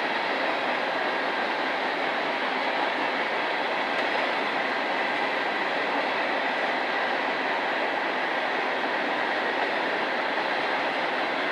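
A moving train, a steady, even noise of wheels running on rail with no change in level.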